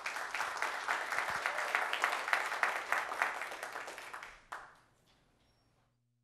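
Applause from a roomful of people: dense clapping that thins out and fades away about five seconds in.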